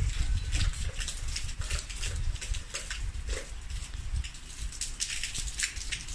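Rain falling, with gusting wind buffeting the microphone in an uneven low rumble. A few faint, short, low-pitched sounds stand out in the first half.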